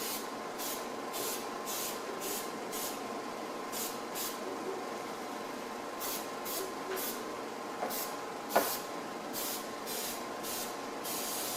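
Aerosol can of headliner adhesive spraying in quick short hissing bursts, about two a second, with a pause midway and a longer spray near the end. A single sharp tap sounds about two-thirds through.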